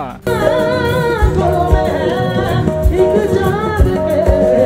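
Live South Asian stage performance: a singer holds and bends long ornamented notes over a band, with drum hits about once a second. The music cuts in abruptly a moment after the start.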